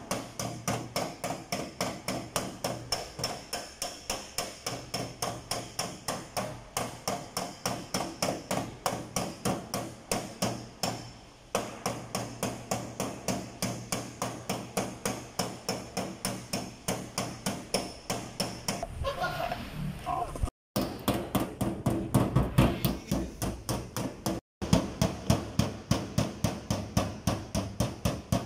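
Rapid, even strikes of a metal body-repair tool against a car's sheet-metal door panel, about four a second, as a dent is worked out of the door. The striking pauses briefly about eleven seconds in.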